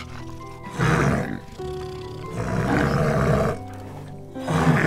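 Brown bear growling in three rough bursts, the middle one longest, over steady background music.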